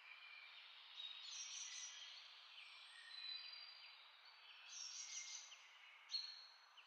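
Faint high chirping of small birds over a soft hiss.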